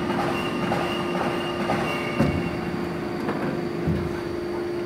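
CNC hydraulic guillotine shear running with a steady mechanical hum, with two short knocks about two and four seconds in.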